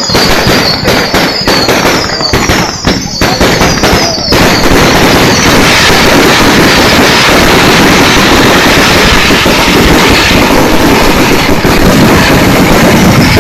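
Fireworks display: a rapid string of bangs and crackles with falling whistles, then, about four seconds in, a dense continuous barrage that is very loud.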